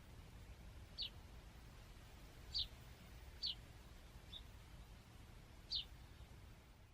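A songbird's short, high call notes, about five of them at uneven gaps, each falling quickly in pitch, over a low steady background rumble.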